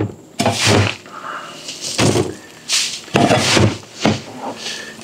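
A shovel scraping and scooping old bedding out of a cut-down plastic IBC tote, in a series of about five separate scrapes and thunks.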